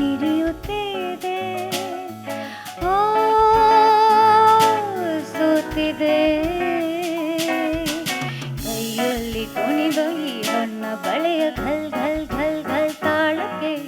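Female vocalist singing a Kannada film song in a jazz arrangement, backed by guitar and drums, with one long held note with vibrato about three seconds in.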